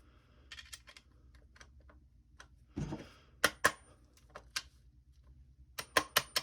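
Sharp metal clicks and knocks from a Remington 870 shotgun's trigger group being lined up and pushed into the receiver during reassembly. A few louder knocks come about halfway through, and a quick run of about half a dozen sharp clicks comes near the end.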